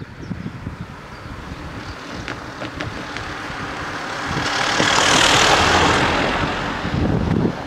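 A Volkswagen Caddy van driving past close by, its tyre and engine noise swelling to a peak about five seconds in and then dying away.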